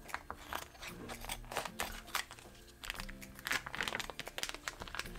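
Clear vacuum-seal plastic bag being cut with scissors and pulled open, crinkling and crackling in many quick irregular bursts. Background music with steady low notes plays underneath.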